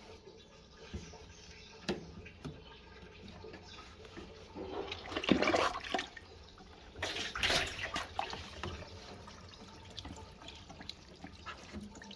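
Water gushing or pouring in two surges, about halfway through and again a second later, with a few light clicks around them.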